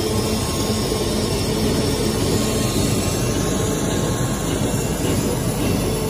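Monofilament extrusion line running: steady machinery noise with faint constant hums mixed in.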